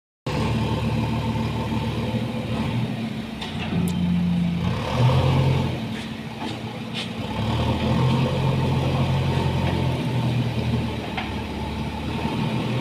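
Diesel engine running, its speed and load shifting up and down several times, with a few light clicks about four to seven seconds in.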